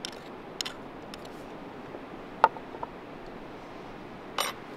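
A metal spoon scraping and clicking against a metal garlic press, with a sharp ringing metallic clink about halfway through and a short scrape near the end, over a faint steady hiss.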